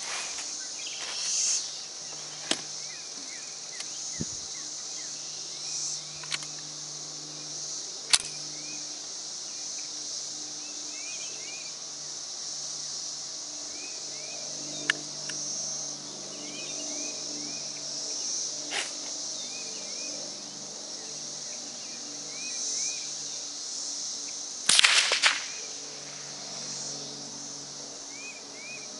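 A Marlin 60 .22 rifle fired a handful of times, single sharp cracks several seconds apart, the loudest one about a third of the way in; these are the first shots through a newly mounted scope, taken to see where it hits before adjusting it. A steady high insect drone runs underneath.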